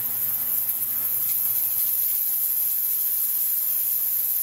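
Crest Ultrasonics Powersonic 1200D-45 ultrasonic cleaner running at its 45 kHz setting: a steady, loud, high-pitched hiss with a buzz, the sound of cavitation in the tank's liquid.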